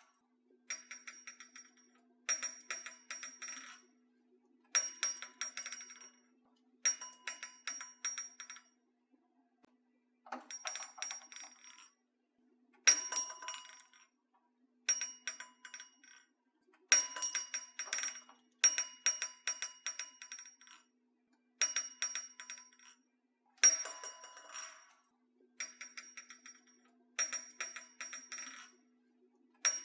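Doorbell ringing in short bursts of about one and a half to two seconds, repeated a dozen or so times with brief gaps. Each burst is a rapid metallic jingling with a bright ring.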